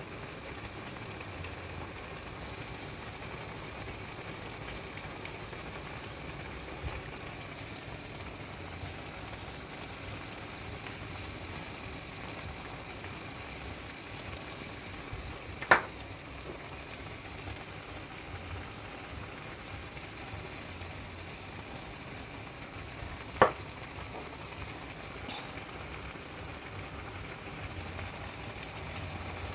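Food frying and sizzling in a pan, a steady hiss, broken twice by a sharp knock, about halfway through and again about two-thirds of the way in.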